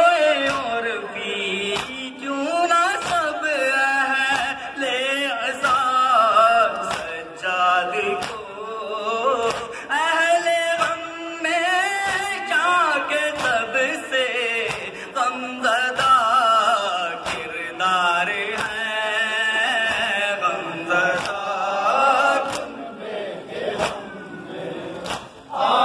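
Male voices chanting a noha, a Shia mourning lament, with the men beating their chests (matam) in a steady beat of roughly one stroke a second under the chant.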